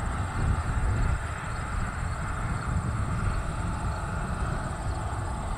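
Bombardier Challenger 600-series business jet taxiing, its twin rear-mounted turbofans running steadily at low taxi power with a low rumble and a whine.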